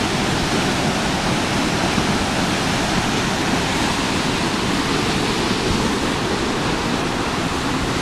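Large waterfall in full flow, heard from an overlook above it: a steady, loud rush of falling water.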